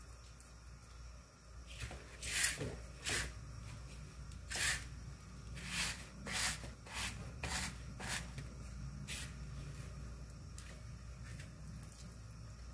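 Dry breadcrumbs rustling and crunching under hands as a chicken breast is pressed and coated in them: a string of short, scratchy rustles, most of them between about two and nine seconds in.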